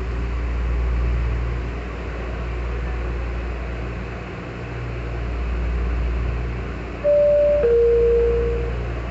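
Metrorail car's door-closing chime: two steady tones about seven seconds in, the second lower and longer, warning that the doors are about to shut. Under it runs the steady low hum inside the train car.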